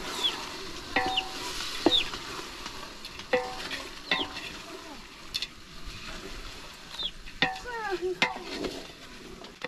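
Dagaa (small dried fish) sizzling in a large aluminium pot over a wood fire, with a steady hiss, while a long stirring stick scrapes through the fish and knocks against the pot several times, the pot ringing briefly after some knocks.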